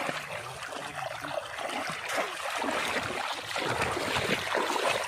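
Shallow water splashing and trickling irregularly, stirred up during polo-trap fishing.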